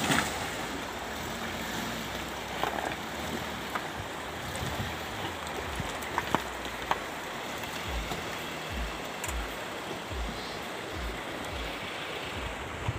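An MPV drives slowly through a shallow stony river and up onto the gravel bank, over the steady rush of the river water. There are a few sharp clicks about halfway through, and a handful of dull low thumps in the second half.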